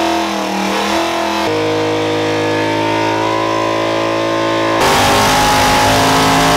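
Car engines held at high revs during burnouts, in quick cuts from one car to the next: first a wavering, bouncing pitch, then a steady high note, then a rougher, noisier stretch near the end.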